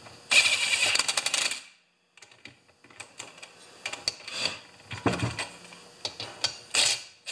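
Cordless drill-driver running a screw into a metal sealing plate on a chainsaw crankcase for about a second, ending in rapid clicking. Scattered light clicks and taps of the bit and parts follow, with another brief burst of the drill near the end.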